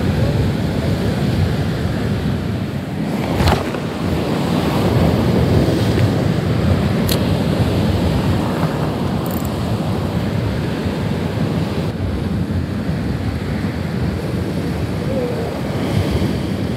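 Sea surf washing on a rocky shore, with wind buffeting the microphone; two sharp clicks, about three and a half and seven seconds in.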